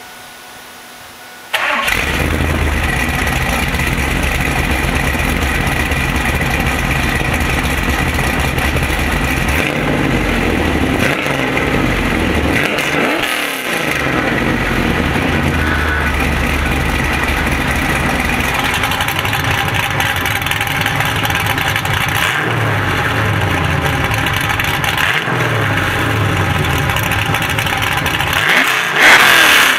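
A 1996 Camaro Z28's 383 stroker LT1 V8 starting about a second and a half in, then idling through the exhaust with several throttle blips that rise and fall in pitch, the loudest one near the end.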